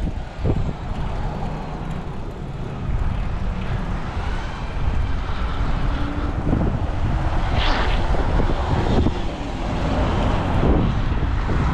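Wind buffeting the microphone and low road rumble from a moving bicycle ride, with a brief higher-pitched sound about two-thirds of the way through.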